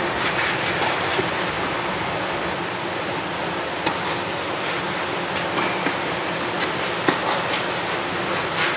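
Steady rushing noise filling an indoor tennis hall, broken by a few sharp knocks of a tennis ball being struck, the loudest about seven seconds in.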